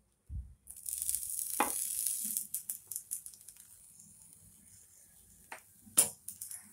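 Bread slices frying in oil on a hot tava: a hissing sizzle starts about a second in, is strongest for the next couple of seconds and then dies down. A few sharp clicks sound over it, the loudest near the end.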